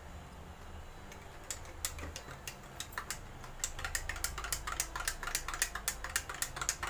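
A spoon stirring a drink in a glass tumbler, clinking against the glass in quick, irregular clicks. The clicks begin about a second and a half in and grow faster and denser.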